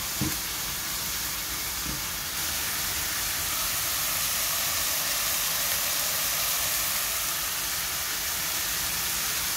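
Sauté of tomatoes, onions, garlic, shrimp paste and dried shrimp sizzling steadily in oil in a wok while being stirred with a spatula. The sizzle grows a little louder about two seconds in.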